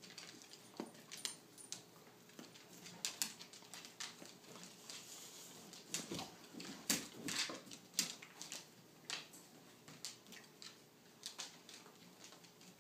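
Pets moving about: irregular scratches, rustles and clicks, busiest in the middle.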